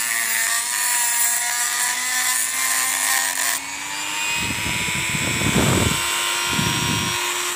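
Hand-held rotary tool with a cut-off disc grinding the pickup (pulser trigger) lug on a Suzuki Shogun's magneto flywheel: a steady high motor whine with a hiss from the disc cutting metal. About three and a half seconds in the hiss stops and the whine rises slightly as the disc comes off the metal and spins free. A few low rustling noises follow.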